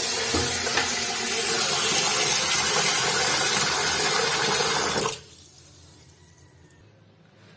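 Kitchen tap running hard into a steel pot of rice-rinsing water in a stainless steel sink, a steady splashing rush. It is turned off about five seconds in.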